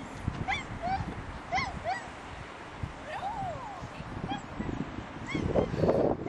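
Golden retriever puppy giving a string of short, high yips and whines, a couple a second, while jumping for a toy in excitement. A rushing noise swells near the end.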